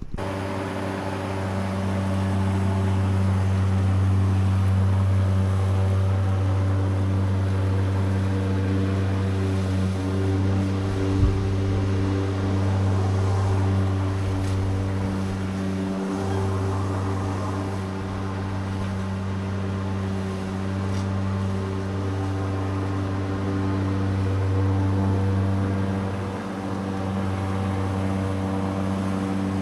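Mountfield 80 V cordless rotary lawnmower running and cutting longer grass: a steady electric hum from the spinning blade, dipping briefly twice, with one sharp tick about a third of the way through.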